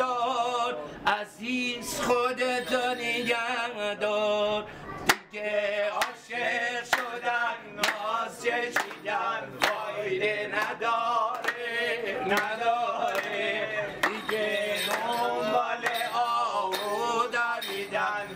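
A man singing unaccompanied in Persian, his voice holding long phrases that waver and trill up and down in pitch.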